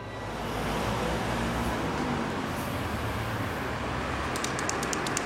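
Outdoor street ambience: a steady haze of traffic noise with a low rumble. Near the end a rapid rattling of sharp clicks starts, several a second.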